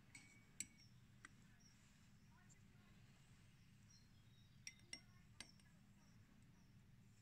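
Light clinks of metal crocodile clips and electrodes, a zinc strip and an iron nail, tapping against glass beakers as they are set into the solutions: a few soft taps in the first second and a quick group of three about five seconds in, over a faint hiss.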